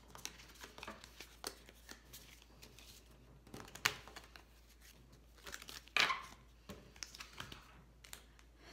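Tarot and oracle cards being gathered up off a wooden table and squared into decks: a string of soft slides and light taps, the loudest about four and six seconds in.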